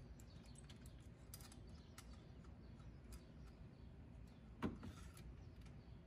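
Faint scattered clicks and clinks of small parts and tools being handled during engine-bay work, with one louder knock about four and a half seconds in.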